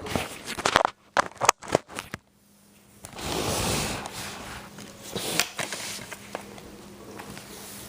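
A plastic DVD case and its wrapping being handled. There are sharp clicks and knocks in the first two seconds, then a crackling rustle and scraping.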